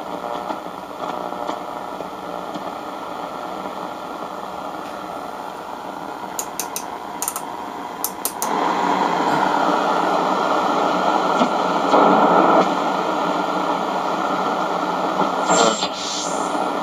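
Radio Shack 12-795 multiband receiver's speaker hissing with static as it is tuned between stations, with a few faint clicks partway through. The static gets louder about halfway through, and near the end sliding whistle tones come up as the dial passes a station.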